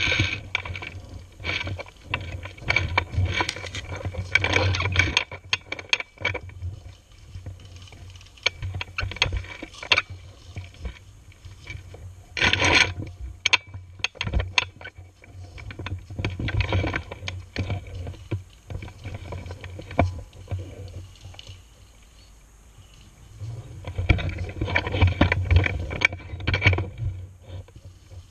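Handling noise from a camera mounted on an airsoft rifle: irregular knocks, scrapes and rattles with dull thumps, mixed with rustling steps in dry leaves and grass. It comes in several busy bursts with quieter gaps between.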